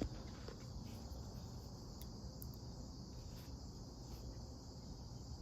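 Faint, steady chorus of crickets, a continuous high-pitched trilling.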